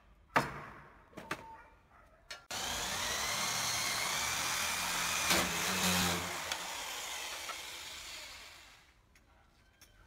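A few sharp metallic clacks as brass door-lock handle plates are handled. Then a corded electric drill starts suddenly and bores into the edge of a wooden door with a steady high whine, running for several seconds before winding down.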